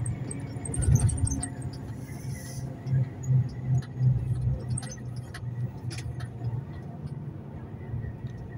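Truck's diesel engine running with road noise, heard from inside the cab while driving. A few scattered clicks, and a short hiss about two seconds in.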